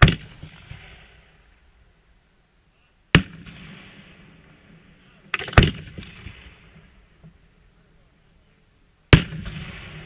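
Aerial firework shells going off in four sharp bangs: one at the start, one about three seconds in, a quick cluster of pops at about five and a half seconds, and one at about nine seconds. Each bang trails off in a fading hiss.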